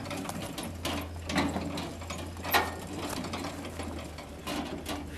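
Irregular metallic clicks, clinks and knocks of metal parts being handled, over a steady low hum.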